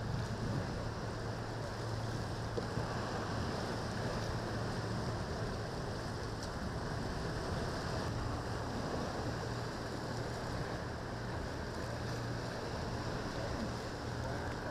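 Choppy waves splashing and churning with wind on the microphone, over the low steady drone of a cabin cruiser's engine.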